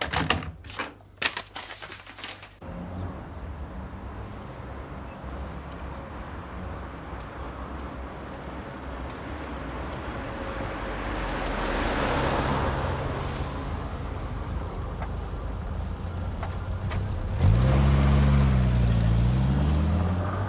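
A few sharp clicks and knocks, then a road vehicle running steadily with a low rumble. The noise swells and eases off midway, and near the end a louder engine note rises and falls.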